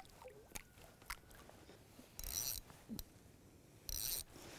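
Fishing reel letting out line twice in short, high ratcheting buzzes as line is pulled off the spool by hand, with a few light clicks from handling the rod.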